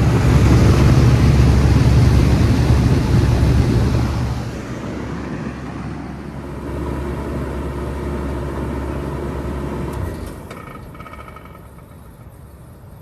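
2019 Bard two-stage wall-mount heat pump in heat mode running with a steady hum, then shutting down: the sound drops to a lower level about four seconds in and stops at about ten seconds.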